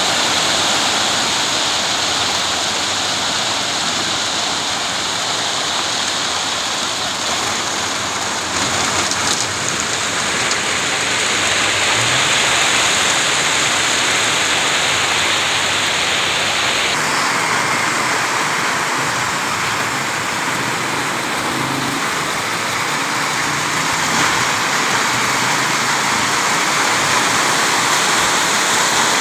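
Wet concrete pouring steadily down a long chute from a concrete mixer truck, a continuous gravelly rush, with the truck's engine running underneath.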